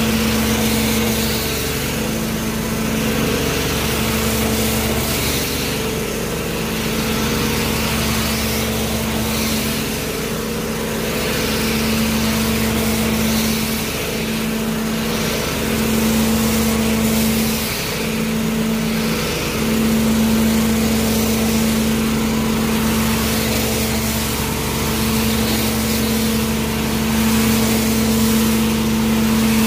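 Carpet-cleaning extraction wand sucking water off a concrete garage floor, over the extraction machine's steady drone. A hum runs throughout, and the hiss of suction swells and fades with each stroke of the wand.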